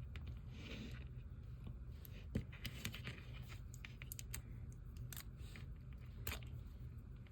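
Light handling noise of small gel polish bottles and caps: scattered sharp clicks and soft rustles, over a steady low hum.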